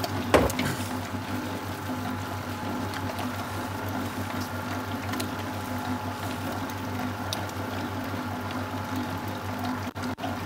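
Commercial planetary mixer running at slow speed, its motor humming steadily as the paddle beats eggs into choux paste. A short knock sounds about half a second in.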